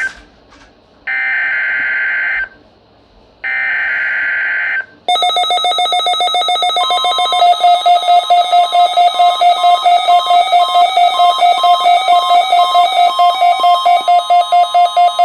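NOAA Weather Radio test broadcast: the end of one and then two more buzzing digital header bursts, then from about five seconds in a loud alarm of fast, even beeping pulses with a steady warning alarm tone joining about two seconds later. These are the weather radios being set off by the weekly tone alarm test.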